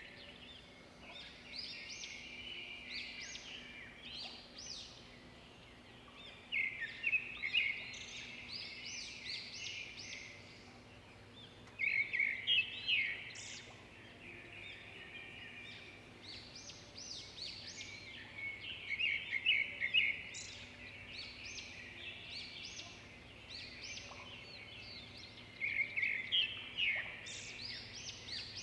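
Birdsong: a bird sings a quick run of high chirps about every six or seven seconds, with softer chirping between the phrases.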